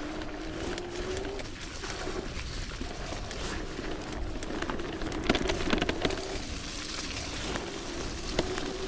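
Bafang BBS01 mid-drive e-bike motor whining, its pitch slowly rising and falling as the bike rides on, over the noise of tyres on the trail. Sharp knocks and rattles from the bike going over rough ground come about five to six seconds in, the loudest part, with another knock near the end.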